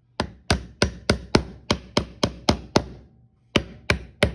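Claw hammer driving nails into a wooden birdhouse: a quick run of sharp strikes, about three a second, with a short pause about three seconds in before a few more.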